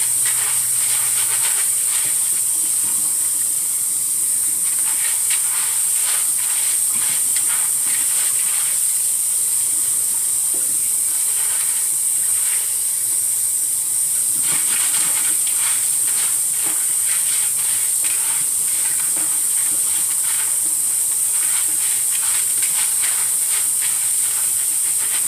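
Cold tap water running steadily into the sink over pinto beans as they are rinsed, with faint clicks of the beans being moved about; the water stops suddenly at the end.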